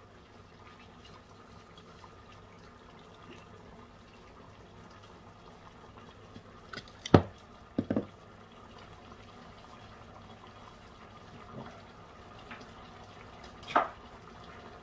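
Pot of pork adobo simmering on the stove, a faint steady bubbling, with a few sharp knocks: a loud one about seven seconds in, two quick ones just after, and another near the end.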